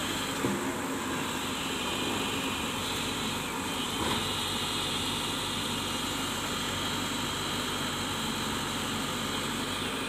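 Diesel engine of a SANY SY140C crawler excavator running steadily as the machine travels on its steel tracks, with a short knock about four seconds in.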